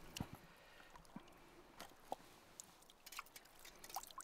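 Near silence with faint scattered drips and small clicks: water dripping off a wet border collie's fur as it is rinsed.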